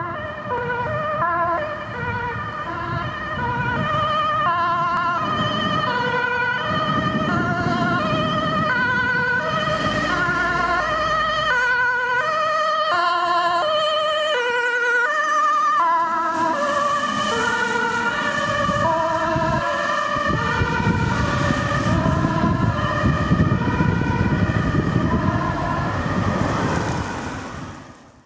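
Dutch ambulance's two-tone siren alternating between a high and a low note about twice a second as the Volkswagen Transporter ambulance drives past at speed, with engine and tyre noise underneath. The siren fades out near the end.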